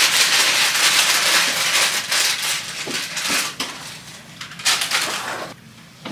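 Bags and snack packaging rustling and crinkling as they are rummaged through, in a dense burst for the first couple of seconds, then in scattered crinkles that die down near the end.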